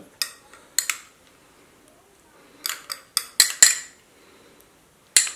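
Glassware clinking as hot sauce is tipped from a small glass bowl into a glass mixing bowl. There are two sharp clinks near the start, a quick run of about five in the middle, and one more near the end.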